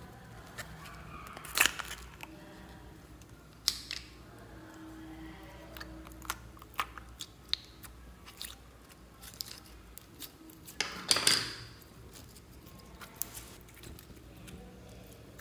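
Clear pink store-bought slime being worked out of its plastic container and squeezed in the hands: a couple of sharp plastic clicks early on, then a run of small crackles and wet pops, with one longer, louder squish about three-quarters of the way through.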